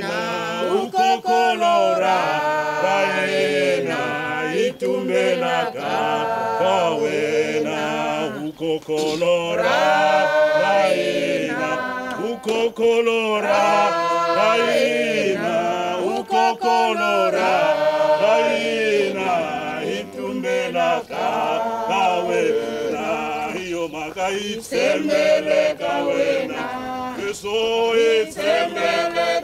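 A group of voices singing together unaccompanied, in long sustained phrases with brief breaths between them.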